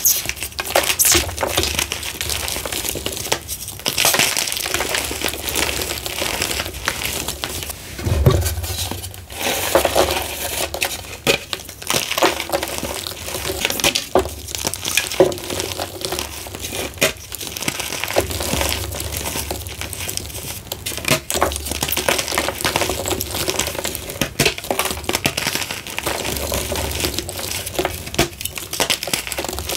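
Hands crushing and crumbling a dried slab of reformed gym chalk: a continuous crunching with many small sharp crackles and clicks as chunks break apart and powder is pressed down.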